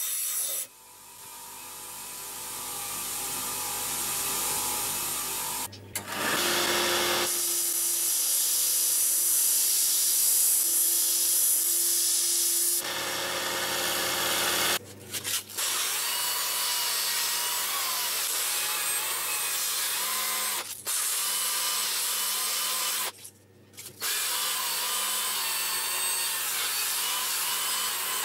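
An old steel SDS drill bit, spun in a cordless drill, ground against a bench grinder wheel and later against a belt sander's abrasive belt to shape its four-sided awl point: steady grinding hiss over the whine of the motors, in several short segments that cut in and out abruptly.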